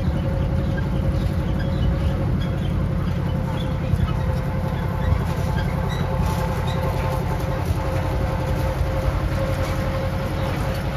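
Miniature ride-on zoo train running, heard on board: a steady low rumble with a constant whine over it.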